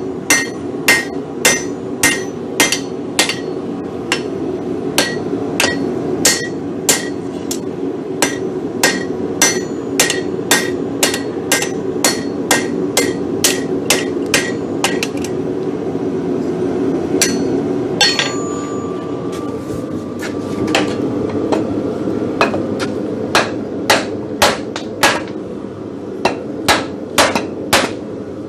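Hand hammer striking a hot steel block on an anvil at about two blows a second, knocking the edges off a nail-header blank rather than forging it. There is a short pause a little past halfway, then the blows resume.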